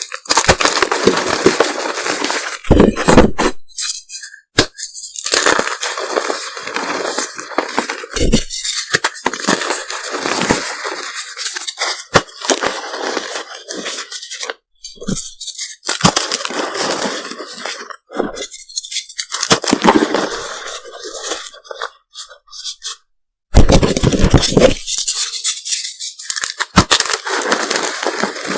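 Reformed gym chalk pieces being crushed, crackling and crumbling in bursts of dense crunching with short pauses between squeezes.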